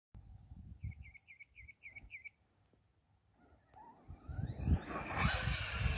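A bird gives six quick chirps over low wind rumble on the microphone. About four seconds in, the ARRMA Kraton 4S BLX's brushless motor winds up in a rising whine as the RC truck accelerates over dirt, and this becomes the loudest sound.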